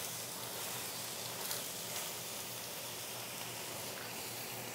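Oyster mushrooms sizzling with a steady hiss in a cast iron pan cooked without oil, as the added water steams off. A couple of faint ticks are heard in the middle.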